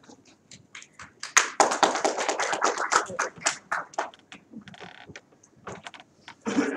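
A quick run of sharp taps, densest for about two seconds starting a second in, then thinning out, with a duller thump near the end.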